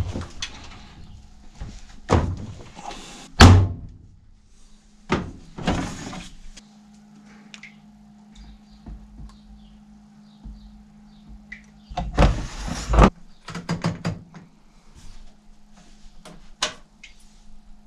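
Front-loading washing machine being loaded and set: a string of thunks and knocks as laundry is pushed into the drum and the detergent drawer and door are handled, the loudest about three and a half seconds in and a clattering cluster around twelve seconds. A low steady hum runs underneath from about six seconds on.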